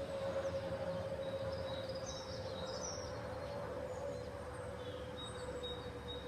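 Airbus A319 flying over, its fuel overpressure protector (FOPP) cavities under the wings giving a steady whistle that drifts slowly down in pitch over the jet's broad rumble. Air rushing over the cavities makes this whistle, typical of the A320 family. Birds chirp faintly in the background.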